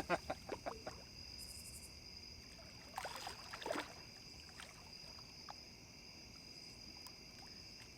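A night insect chorus trilling steadily at two high pitches. Over it come a quick run of sharp clicks and knocks at the very start and a short splashy rush about three seconds in, as the hooked flathead catfish stirs the water beside the boat.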